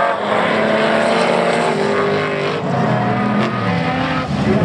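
Several dirt-track race car engines running hard together as the pack races past, their pitches rising and falling as the drivers work the throttles, over the noise of tyres on dirt.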